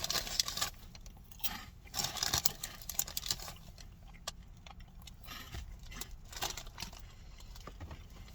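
A person chewing a dry, crunchy pickle-and-cheese ball snack: irregular crunches, busiest in the first few seconds, then fewer and softer.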